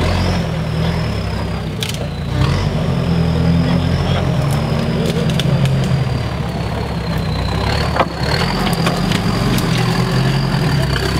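Toyota 4x4's engine running under load as it crawls over riverbed rocks, revving up about two seconds in, with a sharp knock about eight seconds in and a thin, wavering high whine throughout.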